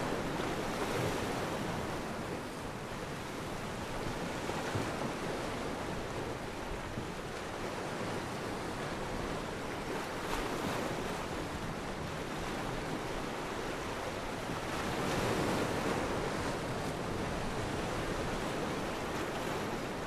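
Ocean waves and surf: a steady, even rush of sea noise that swells gently now and then, with some wind.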